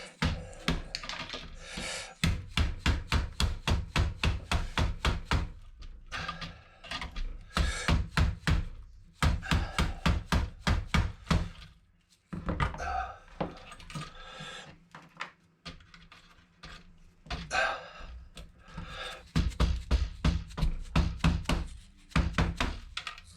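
Rapid repeated knocks, about four a second, in runs of a few seconds with short pauses between: a sharpened blade tool being driven against a clamped motherboard to knock components and pins off.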